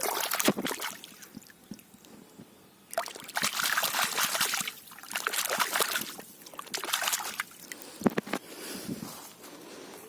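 Two freshly dug sweet potatoes being washed by hand in water: splashing and sloshing in several bursts, with a few sharp knocks near the end.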